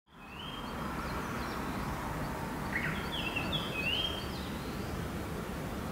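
Basketball shoes squeaking on a gym court: a run of short, high squeaks that slide up and down, over a steady hall hum.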